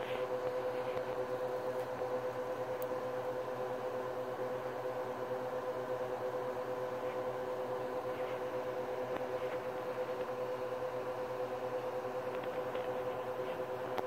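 A steady mechanical hum with a clear fixed pitch and several overtones, unchanging throughout, with a few faint soft clicks here and there.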